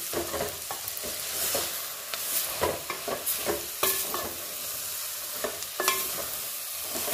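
A wooden spatula stirs and scrapes cooked gram, fried onions and grated dry coconut around an aluminium pot in irregular strokes, over a steady sizzle of frying.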